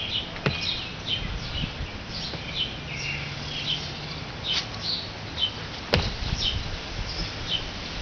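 Small birds chirping, a steady run of short falling notes several times a second, with a couple of sharp clicks, the loudest about six seconds in.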